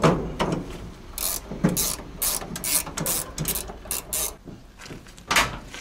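Hand tools working a bolt on a truck's steering cardan shaft: a run of short metallic clicking strokes, about three a second, with a louder metal knock near the end.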